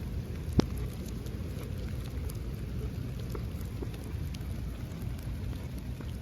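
Steady rain falling, with scattered drop taps and one sharp tap about half a second in.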